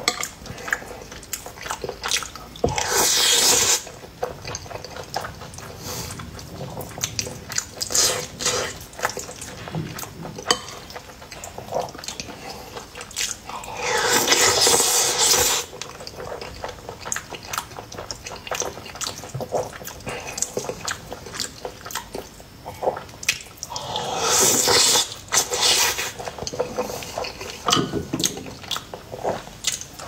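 Close-miked eating sounds: wet chewing and lip-smacking with many small clicks, broken three times by loud slurps lasting a second or two, one early, one near the middle and one about three quarters of the way through.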